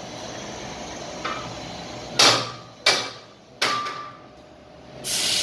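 Three sharp metallic clanks, each with a short ring, spaced well under a second apart, over a steady low background noise. A louder rushing noise follows near the end.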